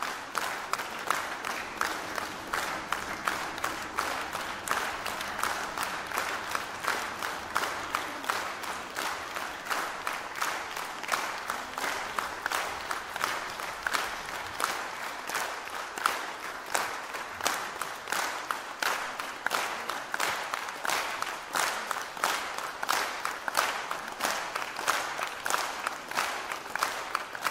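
Concert audience applauding, the clapping falling into a steady rhythm of about three claps a second.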